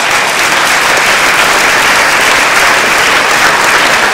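Audience applauding, loud and steady, with many hands clapping.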